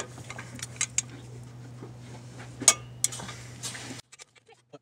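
Scattered sharp metallic clicks and clinks of a torque wrench and socket on the clutch pressure-plate bolts, over a faint steady hum that cuts off near the end.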